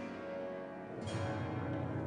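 Grand piano played solo: held notes fade away, then a new chord with a low bass note is struck about a second in and rings on.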